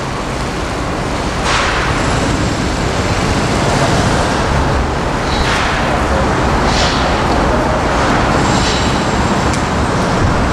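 Steady, loud outdoor rumbling noise, with a few brief hissing swells.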